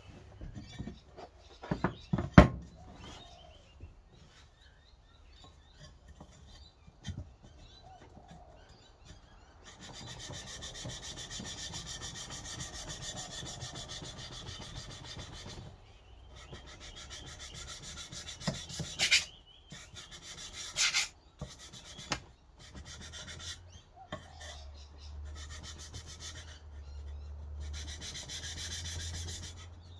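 Knife blade stroked back and forth on 800-grit wet/dry sandpaper wetted with WD-40 to sharpen a scandi grind: a steady rasping scrape in long runs from about a third of the way in, with short pauses and two louder strokes past the middle. A few sharp knocks come in the first seconds as the knife and paper are handled.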